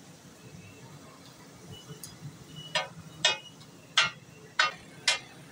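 Metal cooking utensils striking metal at a street-food griddle: five sharp clinks with a short ring, about half a second apart, in the second half, over a steady low hum.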